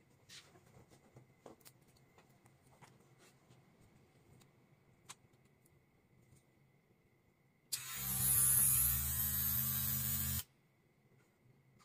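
Small 3 V DC motor of a homemade battery-powered coffee frother switched on about eight seconds in, running steadily for a couple of seconds, then cutting off suddenly. Faint clicks of the device being handled come before it.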